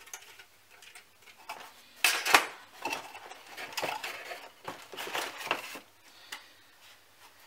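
Hard plastic model-kit parts on their sprues clattering and knocking inside a cardboard kit box as it is unpacked, with a sharper knock about two seconds in and lighter clicks and rustles of the box insert and bagged sprues after.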